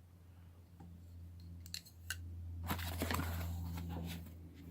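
Light metallic clicks from handling a folding knife, two sharp clicks about two seconds in, then a brief rustle of handling, over a steady low hum.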